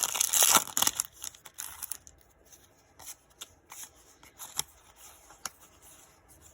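Foil Pokémon booster pack wrapper crinkling for about the first second, then trading cards being handled and slid through with soft scattered flicks and rubs.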